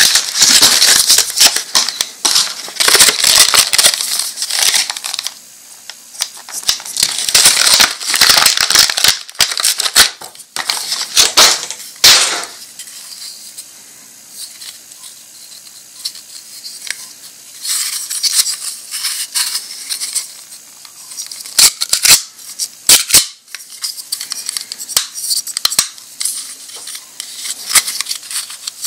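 Cellophane wrapper crinkling loudly as a plastic Pez dispenser is pulled out of its bag, then sharp clicks and taps of the hard plastic dispenser being handled, with more crinkling in between.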